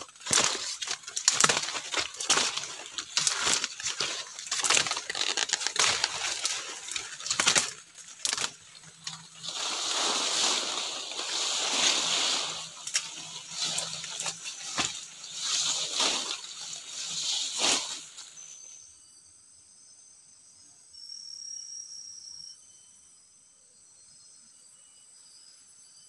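Palm fronds being handled and worked by hand, rustling and crackling with many sharp snaps, for about eighteen seconds. The rustling then stops suddenly, leaving faint steady insect buzzing.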